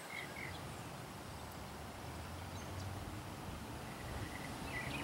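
Faint outdoor background: a low steady rumble, with small bird chirps at the start and again near the end.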